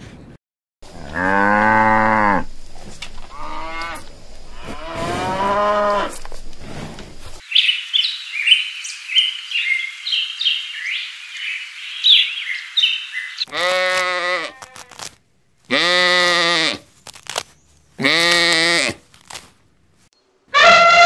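A sequence of animal calls. First a camel gives several low, drawn-out calls. Then comes a bird's rapid string of short high chirps over a steady hiss. Last, a lamb bleats three times, about two seconds apart, and another longer falling call starts near the end.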